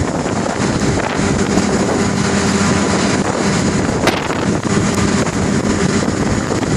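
Strong wind buffeting the microphone: a loud, steady rumbling hiss, with one sharp click about four seconds in.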